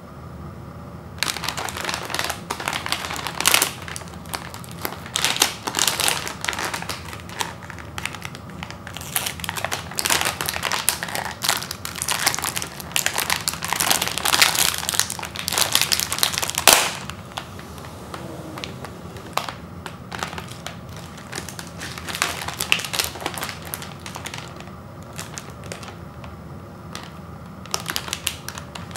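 Chips Ahoy cookie package's resealable plastic wrapper crinkling as it is handled and its seal peeled open. The crackle is dense and loud for the first half, then turns sparse and quieter.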